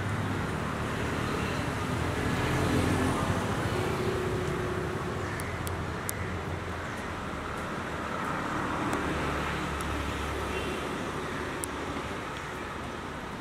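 Street traffic: motor vehicle engines running and passing, swelling about two seconds in and again around nine seconds in.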